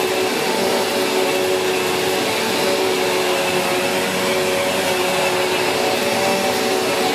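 Sanyo SCA-7AX upright bagged vacuum cleaner running steadily, its brush roll agitating the floor, with a steady motor hum that wavers slightly in pitch.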